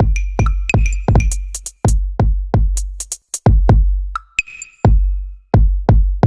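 Electronic background music with a drum-machine beat: deep kick drums that drop in pitch, quick hi-hat ticks and short chiming synth notes.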